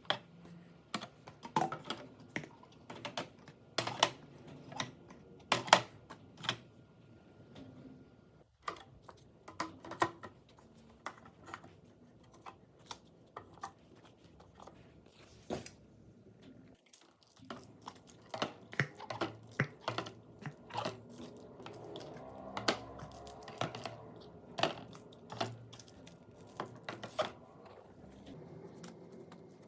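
Irregular clicks, taps and light knocks of food packages and plastic containers being handled and set down while a fridge is restocked.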